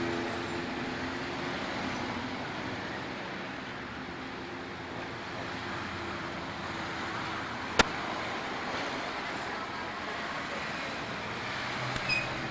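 Steady street traffic noise, a hum of passing cars, with one sharp click about eight seconds in.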